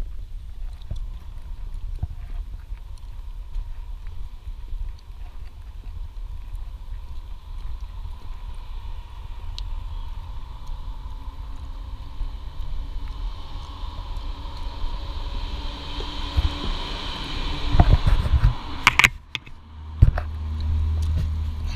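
Steady low wind and handling rumble on a walking camera's microphone, with a car passing on the street whose tyre hiss swells over several seconds to a peak near the end. A few sharp knocks follow as the camera is brought up to a door.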